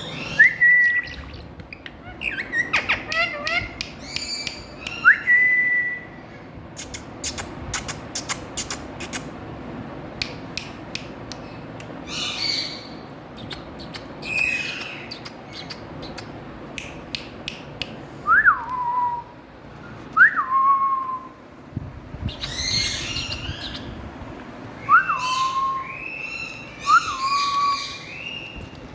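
Indian ringneck parrot calling: a series of whistled notes and harsher squawks. In the second half come several sharp swooping whistles that rise and then drop to a lower held note. Bursts of rapid clicking are heard in the first third.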